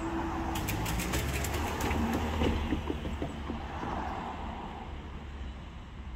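Level crossing barriers rising after a train has passed. A steady hum cuts off just after the start, followed by a run of sharp clicks over a low rumble that fades toward the end.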